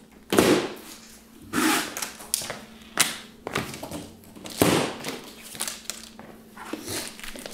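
Plastic packing straps around a cardboard box being snipped and pulled free, giving a series of sharp snaps and thuds against the cardboard, about six in all, spaced a second or so apart.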